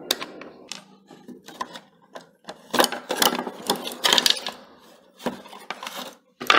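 A screwdriver turning out small screws from the plastic housing of an electric hand mixer makes irregular clicks and scrapes. The housing, tools and loose screws clatter against a wooden tabletop, with a few sharper clacks in the middle and near the end.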